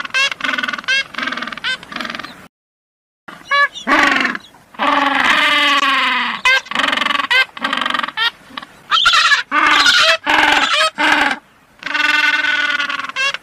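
Penguins calling: a run of short honking calls and longer, rising-and-falling braying calls, each with many overtones. The sound drops out completely for under a second about two and a half seconds in.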